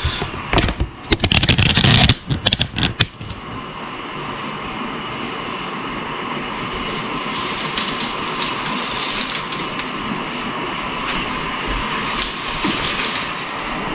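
Artificial Christmas tree's plastic branches rustling and crackling as the tree is shifted into place. The first three seconds hold a loud, busy clatter, followed by a softer, steady rubbing rustle.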